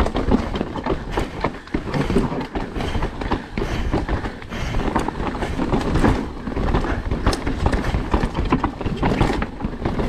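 Mountain bike descending a rough downhill trail: tyres rolling over dirt with constant rattling and clattering from the bike over the bumps.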